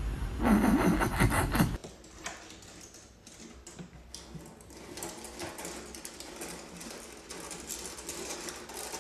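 A loud wavering sound that cuts off abruptly about two seconds in, then light, irregular clicking and rustling as two cats scrabble at and bat a feather wand toy on a hard floor.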